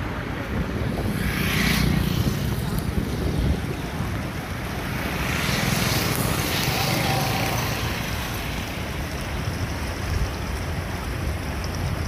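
Wind noise on the microphone over running river water, a steady rush that swells twice, about a second in and again around six seconds.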